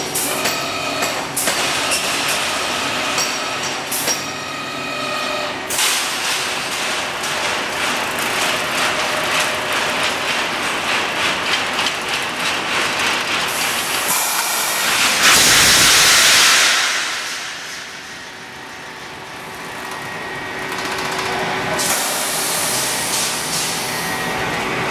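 Pneumatic wire mesh welding machine running, with rapid metallic clattering from its welding and feeding strokes over a steady hiss. A loud hiss lasts about two seconds, starting about fifteen seconds in.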